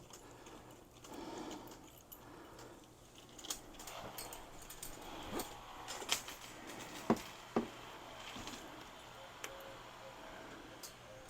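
Scattered small clicks and clinks of light-fixture hanging hardware being handled, with a few sharper knocks between about three and eight seconds in.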